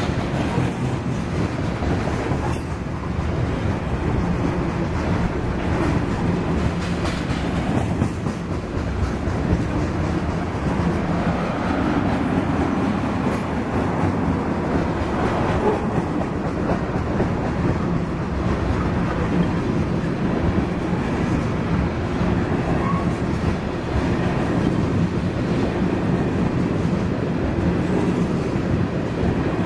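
Freight train's tank cars and covered hopper cars rolling past, a steady rumble of steel wheels on the rails.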